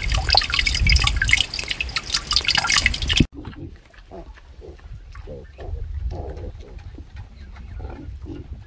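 Rainwater running from a downspout and splashing onto a metal drain grate, dripping densely, until it cuts off suddenly about three seconds in. After that comes a group of piglets grunting softly, several short grunts a second.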